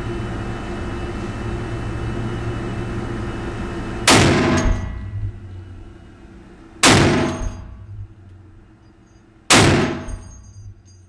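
Barrett M107 (82A1) .50 BMG semi-automatic rifle firing three shots about two and a half seconds apart, each a sharp blast that rings on and dies away over about a second. A steady hum runs under the first few seconds before the first shot.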